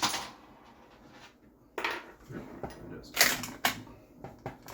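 Handling noises from taking apart an airsoft M4 rifle: a sharp knock at the start, then a few scattered clicks and knocks of parts being moved and set down.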